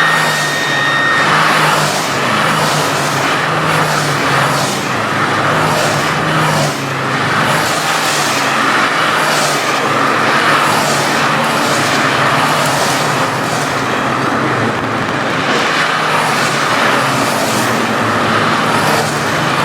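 Citroën C1 race car engine running hard and steady over a dense hiss of water spray from the wet track. A steady high tone sounds for about the first second.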